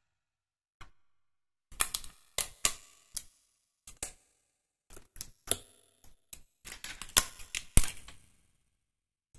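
Pre-cut 3D puzzle pieces being pressed and snapped out of a printed card sheet: an irregular run of sharp clicks and snaps in small clusters, starting about a second in and loudest near the end.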